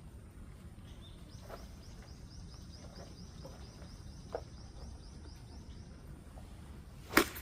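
A high trill of rapid chirps, about five a second, goes on for several seconds. Near the end a golf club strikes the ball in a single sharp hit, the loudest sound.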